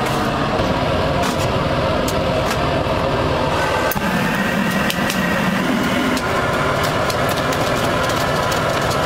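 Steady roar of charcoal being fired over a burner, with frequent crackles and pops.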